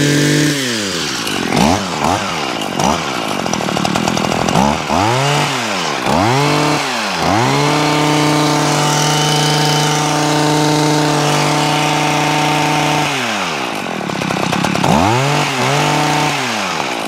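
Stihl HS81T hedge trimmer's two-stroke engine running on a newly fitted carburetor, blipped up and down in quick revs, held at high revs for about five seconds in the middle, then blipped again near the end. The owner says it still wants a little tuning on the pickup.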